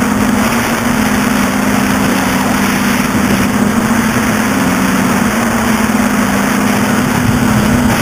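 Innov8tive Designs NL-650 quadcopter's electric motors and propellers running in flight, heard from the craft itself: a steady hum with a rushing hiss, its pitch shifting slightly.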